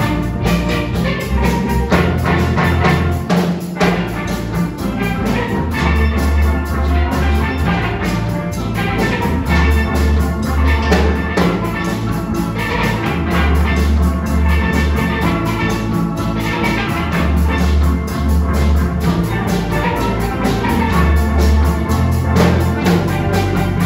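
A steel band playing live: steel pans ringing out a melody and chords over a low bass line that moves every couple of seconds, with drums keeping time.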